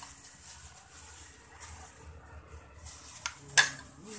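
Clear plastic bag rustling and crinkling in patches as it is handled, with a few sharp clicks; the loudest is a single snap about three and a half seconds in.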